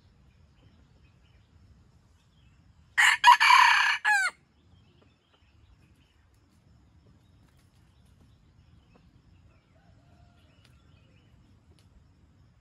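A junglefowl rooster crows once, a short crow of just over a second, broken into a few parts and ending on a falling note.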